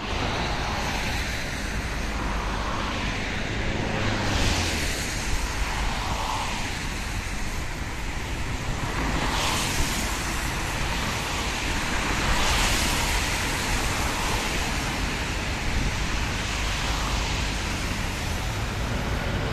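Road traffic on a multi-lane road: a steady rush of tyre and engine noise, with cars swishing past, the loudest about four and a half, nine and a half and twelve and a half seconds in.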